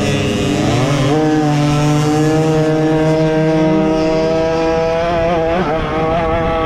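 50cc two-stroke youth dirt bike engine revving up as the bike accelerates, then holding high revs, with a brief dip in pitch about five and a half seconds in.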